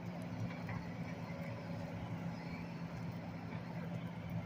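Engine of heavy demolition machinery running steadily, a low hum with a constant pitch.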